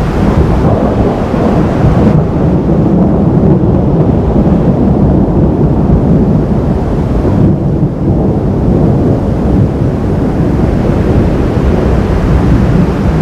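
Thunder rolling in a long, low, continuous rumble, with no sharp crack.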